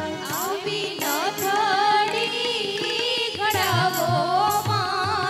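Live Indian ensemble music: a woman sings an ornamented, gliding melody with vibrato into a microphone over keyboard accompaniment, with regular drum strokes and bright percussion hits.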